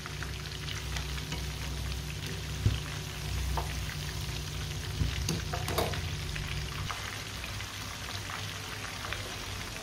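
Marinated chicken tikka pieces deep-frying in hot ghee in a wok, a few minutes in: steady sizzling and bubbling, with a few light clinks as a wire skimmer turns the pieces.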